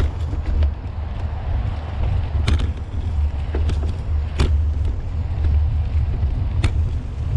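Mountain bike rolling along a dirt singletrack, heard as a steady low rumble of tyres and trail vibration on the camera. About three sharp clicks or rattles from the bike sound over a rough patch.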